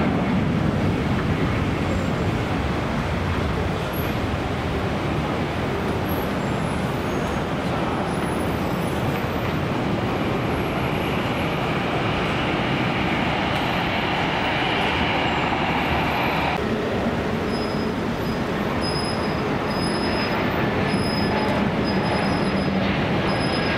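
Jet airliner engines at takeoff power, a loud steady roar, with a higher whine over it for several seconds in the middle that cuts off suddenly.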